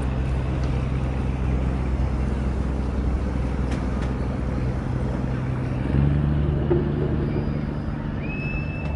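Steady low drone of vehicle engines in city street traffic, which shifts in pitch about six seconds in. A thin, high, steady tone starts near the end.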